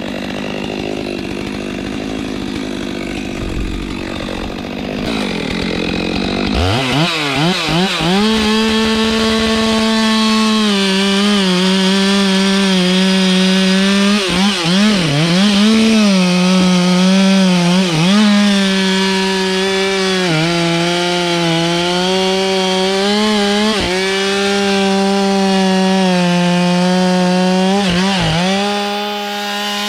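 Two-stroke chainsaw cutting wood at full throttle. It revs up about six or seven seconds in, then its pitch sags and recovers again and again as the chain bites into the wood, dropping briefly near the end.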